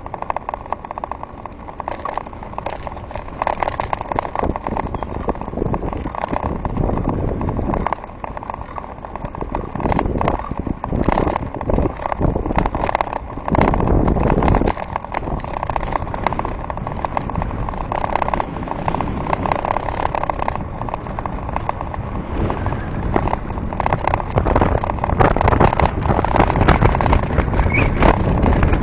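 Wind buffeting the microphone of a handlebar-mounted camera on a moving bicycle, an irregular gusty rumble, with tyre noise from wet tarmac underneath.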